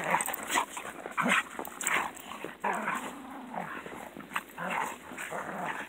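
Dogs play-fighting, with a run of short, irregular growls and snarls.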